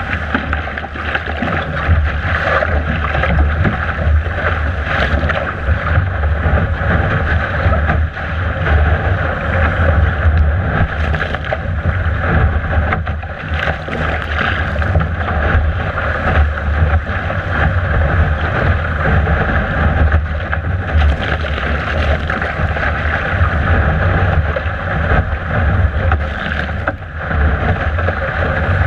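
Strong wind buffeting a deck-mounted camera's microphone and water rushing and splashing along a Laser dinghy's hull as it planes downwind in 22–29 knot winds. The noise is loud and steady, with irregular surges and slaps of spray.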